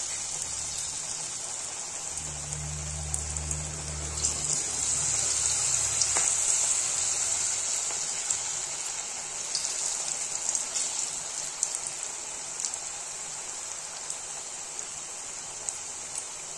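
Hot oil sizzling steadily around cabbage and carrot fritters deep-frying in an iron kadai, a constant hiss with small crackles. A low hum sounds for a few seconds about two seconds in.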